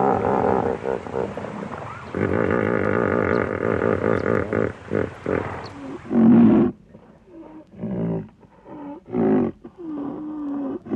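Rhinoceros vocalising: a long, rough, pitched call lasting several seconds, then, about six seconds in, a series of short calls, some gliding up and down in pitch.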